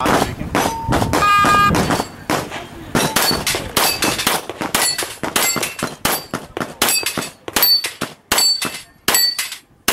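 Pistol shots fired in quick succession at steel plates, the hits ringing the steel with short high pings.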